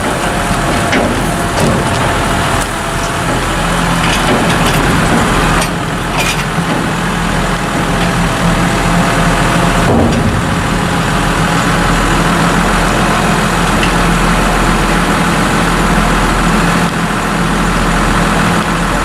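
Tractor engine running steadily beside a tipping trailer that has just emptied its load of chopped maize, with a few knocks in the first half.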